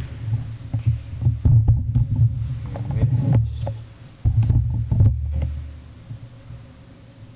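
Handheld camera being moved and set down: a loud, uneven low rumble of handling noise, with a few sharp knocks about 1.5, 3.5 and 5 seconds in. It settles into a fainter low hum near the end.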